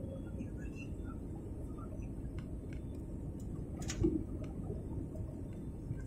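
Steady low rumble of a jet airliner's cabin noise from the engines and airflow on final approach, with faint scattered clicks and a single knock about four seconds in.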